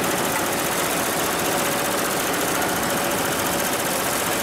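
HIGHTEX 7201 single-head, 12-needle embroidery machine running steadily, stitching a design at speed.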